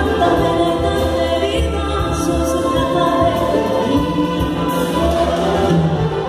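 Live orchestral music: two women singing into microphones, accompanied by violins and woodwinds, with the voices amplified over the hall's speakers.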